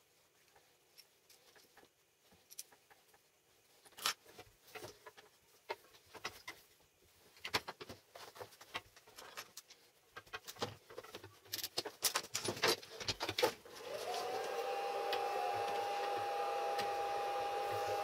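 Small metal parts and hand tools clicking and knocking on a workbench as welding cable leads and clamps are fitted together. About fourteen seconds in, a small motor starts and runs with a steady whirring hum, its tone rising briefly as it comes up to speed.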